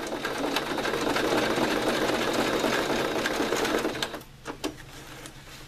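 Singer sewing machine running steadily as it stitches across layered ribbon, then stopping abruptly about four seconds in, followed by a couple of light clicks.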